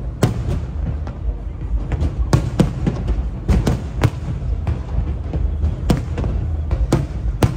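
Aerial fireworks shells bursting overhead in a string of sharp bangs at irregular intervals, about a dozen in all, sometimes two in quick succession. Underneath them runs steady background music with a heavy low bass.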